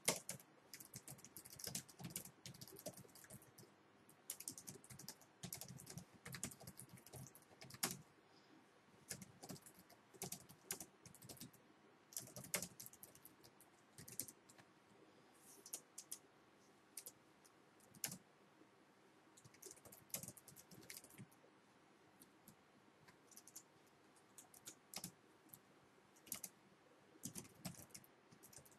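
Typing on a computer keyboard: quick runs of keystroke clicks with short pauses between them.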